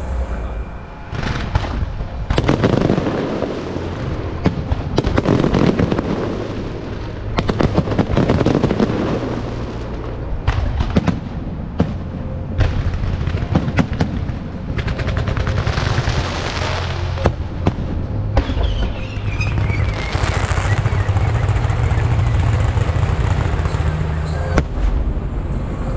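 Fireworks display: aerial shells bursting one after another with sharp bangs and crackling, over a steady low hum, and a falling whistle about three-quarters of the way through.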